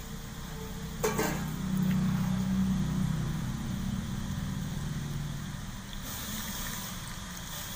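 A vessel is set down with a knock about a second in, followed by a low hum that swells and fades. Near the end, water is poured from a steel tumbler onto lumps of jaggery in an aluminium plate, a light splashing trickle.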